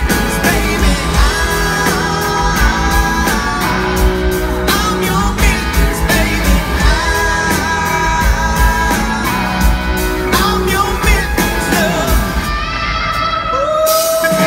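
Live rock band playing a passage between sung lines, electric guitar over drums and bass, recorded from the audience.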